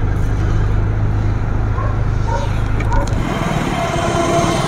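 Steady low rumble of a motor vehicle's engine and road noise heard from inside the moving vehicle. It cuts off abruptly about three seconds in, giving way to thinner outdoor street noise.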